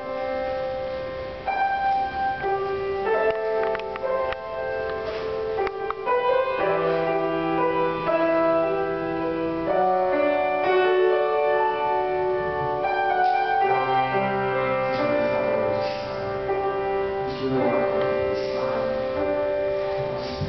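Live music led by a piano: slow chords and melody with long held notes layered over each other.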